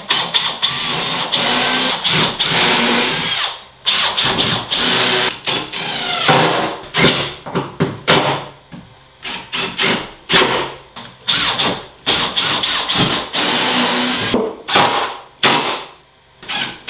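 Power drill running in repeated trigger pulls on wood: a few long runs of two to three seconds, with many short bursts in between.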